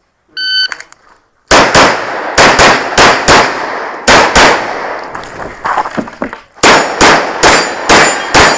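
An electronic shot timer gives its start beep, then a competition pistol fires more than a dozen shots in quick pairs and strings, with a lull of about two seconds in the middle.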